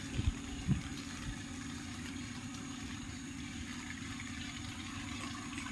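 An engine running steadily with an even, fast low pulse, with a few short thumps in the first second.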